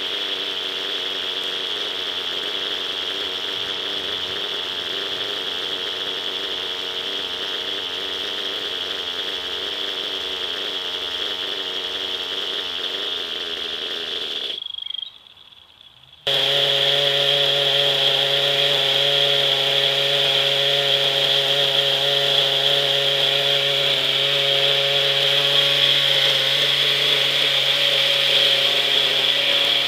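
Small two-stroke glow (nitro) engine of a radio-controlled helicopter running steadily on the ground, a buzzing engine note under a high whine. It cuts out for about a second halfway through, then comes back louder with a lower, stronger note.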